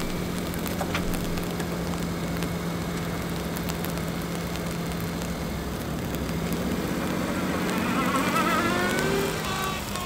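Kei truck engine running steadily, then rising in pitch as it speeds up in the last few seconds.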